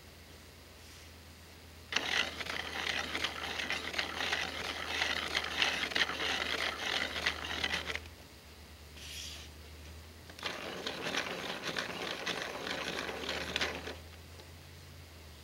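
A pair of 3D-printed plastic spur gears turned by hand, their meshing teeth making a fast, dense clicking rattle. It comes in two runs: from about two seconds in to about eight seconds, and again from about ten and a half seconds until shortly before the end.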